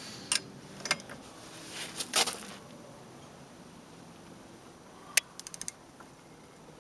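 Click-type torque wrench, set to 50 foot-pounds, tightening a snowmobile's primary clutch bolt. A few light clatters come as the tool is fitted in the first couple of seconds. About five seconds in there is one sharp click, the wrench breaking over at its set torque, followed at once by a quick run of ratchet ticks.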